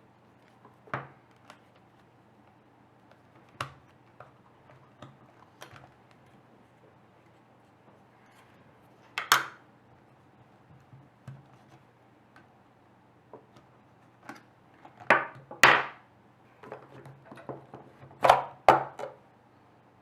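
Irregular clicks and knocks from a DVD recorder's plastic remote control being handled and taken apart. A few louder clicks come about halfway through, and a cluster comes near the end.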